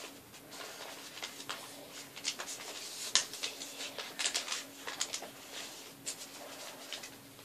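A sheet of paper being folded and creased by hand into a paper airplane: scattered crinkles and rustles, with a faint steady hum underneath.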